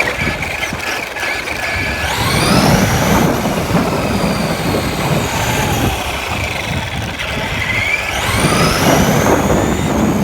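Traxxas RC car driving, heard from a phone mounted on the car: the motor and drivetrain whine rises and falls with the throttle, twice climbing steeply, over a loud rumble of the tyres running over the ground.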